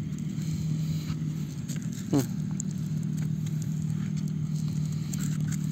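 A steady low engine hum that holds one pitch throughout, with a short falling vocal sound about two seconds in.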